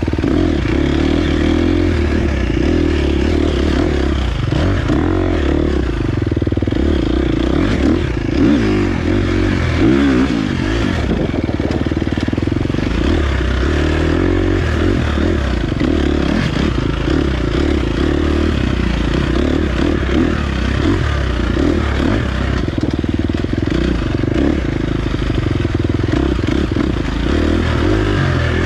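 2023 KTM 350 XC-F dirt bike's single-cylinder four-stroke engine running under way on a trail ride, its note rising and falling with the throttle.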